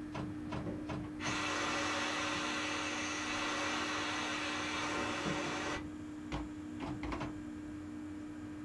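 Compressed air hissing steadily for about four and a half seconds from the standing RhB ABe 4/4 railcar, starting and stopping abruptly, over a steady electrical hum. A few light clicks come just before and just after the hiss.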